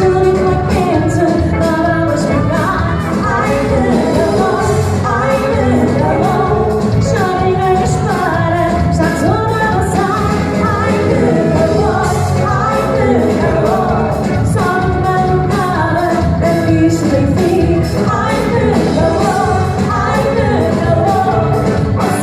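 Band playing pop music with a lead vocalist singing over a steady beat.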